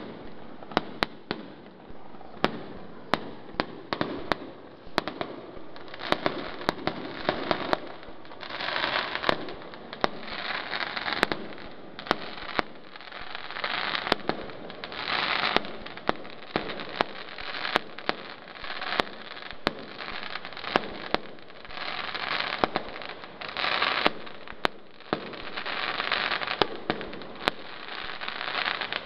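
Aerial fireworks display: a steady stream of sharp bangs from shells bursting, at times several a second, with swells of hissing noise lasting a second or two between them.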